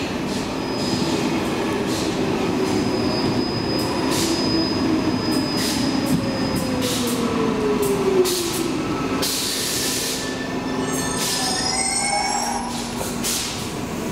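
Stockholm Metro C14 train pulling in and braking to a stop. A tone slides down in pitch as it slows, then squeals and short hisses come in the last seconds before it halts.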